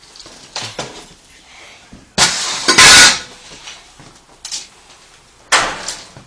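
A house door being forced open: two sharp knocks, then a very loud crash with breaking about two seconds in that lasts about a second, and two more knocks near the end.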